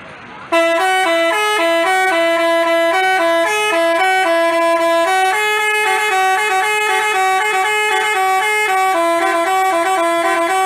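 Basuri-type telolet bus horn playing a quick tune: several horn tones sounding together and stepping from note to note, starting about half a second in.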